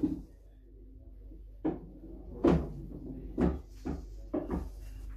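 Pool balls still rolling after a 9-ball break on a 6 ft table, clacking into one another and the cushions. About six sharp knocks come in the second half, after a quiet first second and a half.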